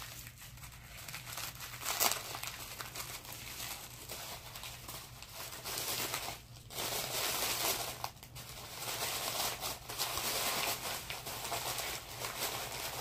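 Plastic packaging crinkling and rustling in the hands as someone struggles to tear it open, with a sharp crackle about two seconds in and two brief pauses in the middle.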